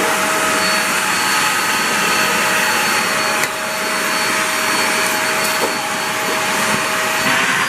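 Hoover React Professional Pet upright vacuum running with its hose pulled out for edge cleaning: a steady motor whine over airflow hiss. It dips briefly about three and a half seconds in, and the whine's pitch wavers near the end.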